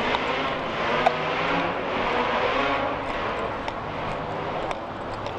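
Rushing noise of motor traffic passing, swelling about two seconds in and easing off, over a steady low hum.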